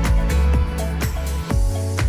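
Background electronic music with a steady drum beat and a heavy bass line.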